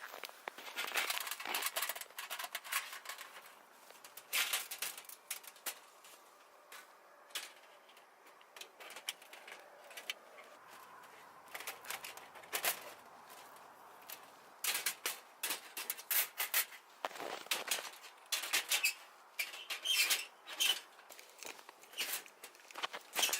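Irregular rustling and sharp clicks and crunches, unevenly spaced and sometimes in quick clusters, busier in the second half.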